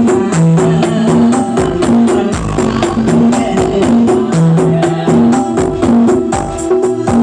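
Loud music with a steady beat and a repeating bass figure, played through a huge truck-mounted 'sound horeg' loudspeaker rig.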